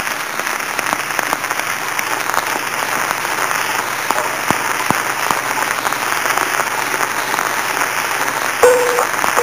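Wax cylinder playback: dense crackle and hiss of the cylinder's surface noise. The first notes of Thai music come in near the end.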